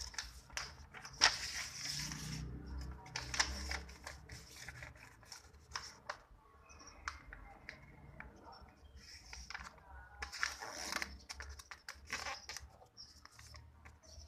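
A sheet of paper being handled, folded and creased by hand: irregular rustles and crinkles with sharp crease clicks, in bursts with quieter gaps between.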